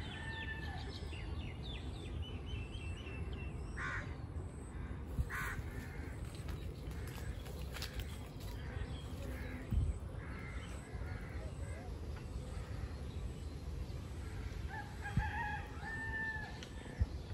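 Rooster crowing at the start and again near the end, over a steady low rumble of wind on the microphone.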